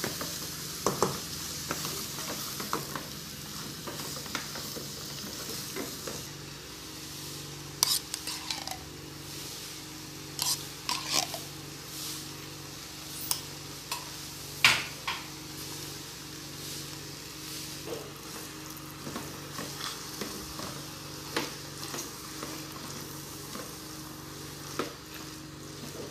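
Shredded chicken filling with corn and tomato paste sizzling in a metal pot while a wooden spoon stirs and scrapes it, with frequent sharp knocks of the spoon against the pot. The filling is being cooked down until dry.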